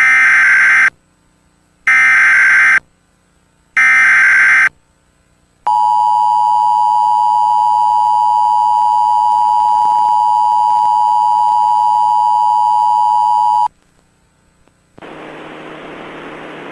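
Emergency Alert System data bursts and attention signal: three raspy, warbling bursts of SAME header code about a second each, then a steady two-tone attention tone held for about eight seconds. These are the tones that open an EAS alert broadcast. A steady hiss begins near the end.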